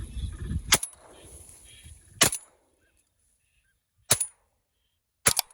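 Shotgun fired four times, the shots a second or two apart, each a sharp crack with a short echoing tail. A low rumble comes just before the first shot.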